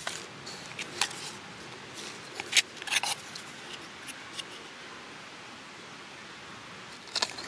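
Light clicks and taps of small items being handled in a watch presentation box, a few scattered about a second apart and a quick cluster near the end, over a steady faint hiss.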